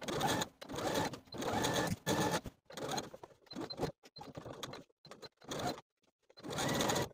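Domestic sewing machine top-stitching a seam through heavyweight linen-blend fabric, running in a series of short bursts that stop and start abruptly.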